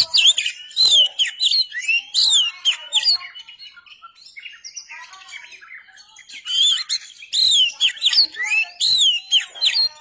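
Oriental magpie-robin (kacer) singing rapid, varied whistled phrases with sweeping up-and-down notes. It comes in two loud runs of about three seconds each, with softer twittering between them.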